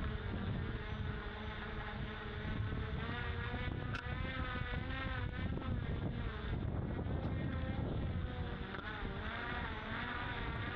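Electric thruster motor of a small autonomous boat whining, its pitch wavering up and down as the waves load and unload it. Underneath is a steady low rumble of wind and choppy water against the hull.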